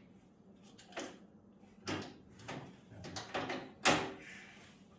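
A series of knocks and scrapes from riding-mower parts being lifted and shifted into place, about five in all, the loudest near the four-second mark.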